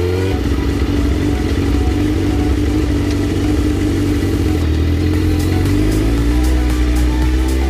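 Suzuki GSX-R1000 inline-four engine running under way, holding fairly steady revs after climbing through a gear.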